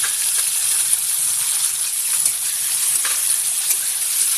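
Chopped tomatoes and onions sizzling in hot oil in an aluminium kadai, a steady frying hiss, while a metal spatula stirs them and scrapes the pan a few times.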